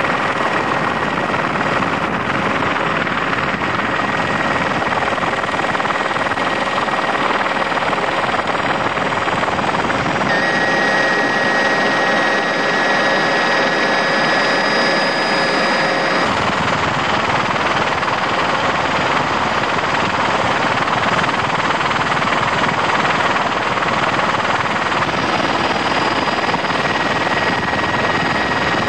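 Helicopter engine and rotor noise: a steady loud rush with a faint high whine running through it, which shifts abruptly twice, about ten and sixteen seconds in.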